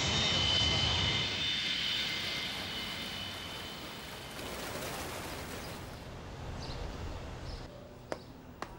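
Twin-engine jet airliner taking off: a loud rush of engine noise with a high whine, fading over the first few seconds to a quieter hiss. A few faint clicks near the end.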